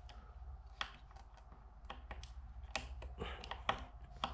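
Irregular small clicks and taps, a dozen or so, from fingers working at the tear-off tab in the side opening of an epoxy primer container.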